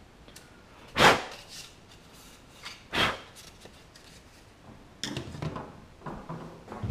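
Plastic car-radio parts being set down and handled on a metal workbench: two sharp knocks about two seconds apart, the first the loudest, then lighter clatter and handling noise near the end.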